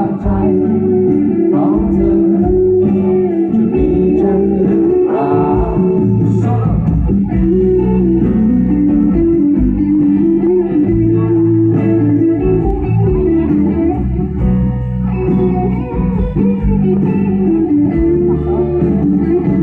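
Live band playing an instrumental break, an electric guitar carrying the melody over bass and drums, loud through the stage PA.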